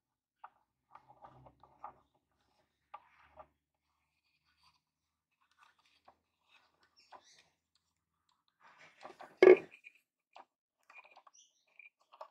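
Small scrapes and clicks of plastic wing knobs being turned on their threaded studs to tighten a board clamp, with one much louder knock about nine seconds in.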